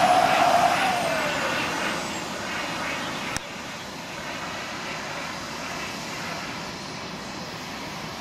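Turbine engine of a giant-scale radio-controlled English Electric Lightning model jet in flight: a loud whine that drops in pitch about a second in and fades to a steady distant rush.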